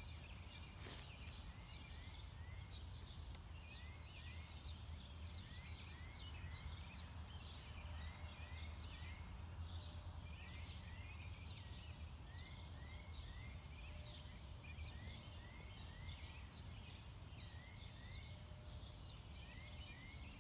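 Faint dawn chorus of birds: many small chirps and calls, among them a repeated pair of quick rising notes, over a low steady rumble. A single sharp click about a second in.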